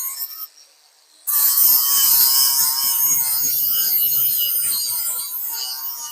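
Abrasive sanding on a Raleigh Chopper's steel frame: a rough, scratchy rubbing noise. It drops out briefly about half a second in, then comes back loud just over a second in and goes on steadily.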